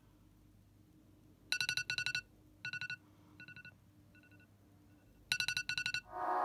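iPhone alarm going off: rapid short electronic beeps in groups. The groups come loud, grow fainter for a few seconds, then loud again. Music fades in near the end.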